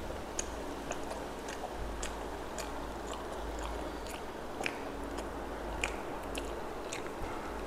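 A person chewing a mouthful of rice and mutton curry, with soft wet mouth clicks scattered irregularly.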